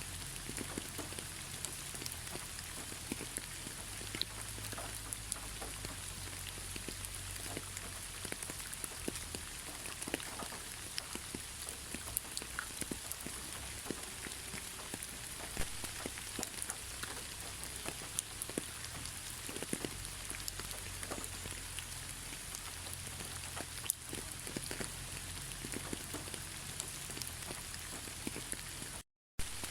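Steady rainfall, with many separate drops ticking sharply over an even hiss of rain. The sound cuts out completely for a split second near the end.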